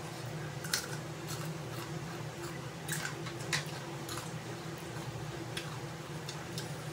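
Close-miked mukbang eating: wet mouth smacks and chewing clicks from two people eating noodles and fried chicken, irregular and scattered, over a steady low hum.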